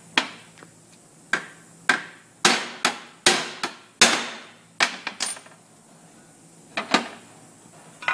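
About a dozen sharp, irregular metal knocks and clanks with a short ring, from a steel brake shoe and rivets being handled and set on the steel table of a brake-shoe riveting machine; the knocks come thick in the first five seconds, then two more a little before the end.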